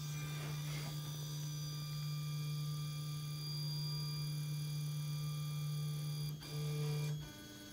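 Stepper motors of a DIY 3D printer humming steadily as the machine moves through its homing sequence. The hum breaks off about six seconds in and comes back briefly at a slightly different pitch. It then stops as the homing move finishes.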